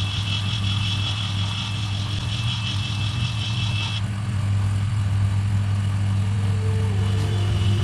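Handheld gas torch burning with a steady low roar; a high hiss over it cuts off about four seconds in.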